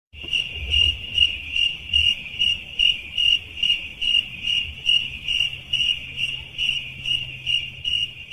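Crickets chirping, the stock meme sound effect for an awkward silence: a high chirp repeating steadily about two and a half times a second over a faint low rumble.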